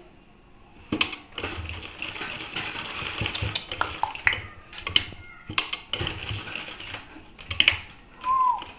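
Domestic straight-stitch sewing machine running in two short stretches as bias piping is stitched onto fabric, its needle and feed mechanism clattering. It starts about a second in and stops near the end.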